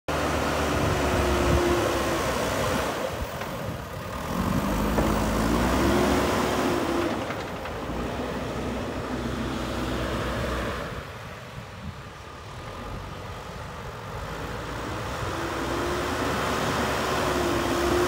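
JCB backhoe loader's diesel engine running under load as it pushes soil with its front bucket, the engine note rising and falling in pitch with the work. The sound drops lower for a few seconds past the middle, then builds again.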